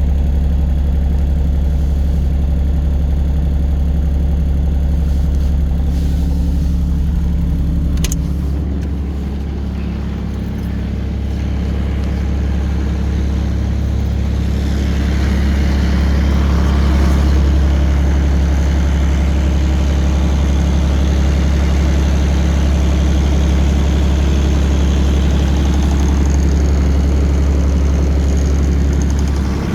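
2017 ASV 30 skid steer's diesel engine running steadily and smoothly, with no sign of a fault. It dips briefly after a click about eight seconds in, then picks up and runs a little louder with a hiss for the rest.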